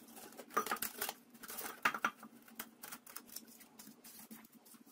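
Plastic cling film pulled from its roll and stretched over a glass bowl, crinkling in a run of irregular crackles that are loudest in the first two seconds.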